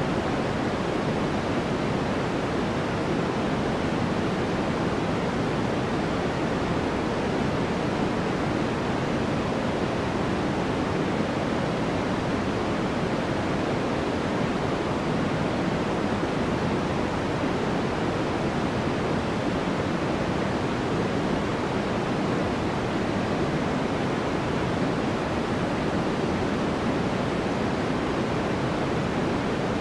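Steady, unchanging synthetic white noise for sleep: an even hiss weighted toward the lows and softer in the treble, closer to pink noise.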